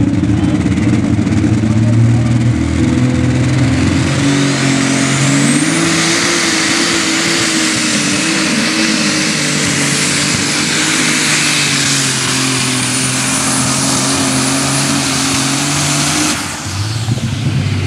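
Open super stock pulling tractor's engine at full throttle hauling the weight sled down the track. Its pitch climbs over the first few seconds with a high whine rising alongside, then holds steady under load. The throttle is cut about sixteen seconds in.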